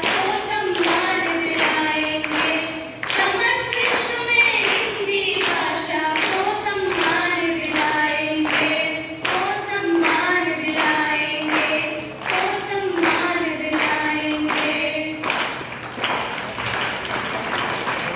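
Two women singing a Hindi patriotic song in unison over a PA, with hand-clapping keeping a steady beat. The singing stops about three seconds before the end, and applause follows.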